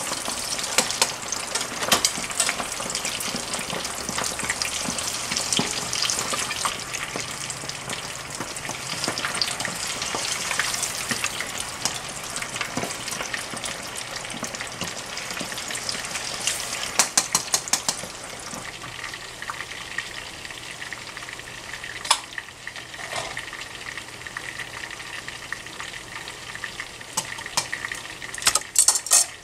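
Chicken wings deep-frying in a saucepan of hot oil, a fresh batch just dropped in: a steady bubbling sizzle full of crackling pops. It eases somewhat about two-thirds of the way through, and there is a cluster of sharp clicks near the end.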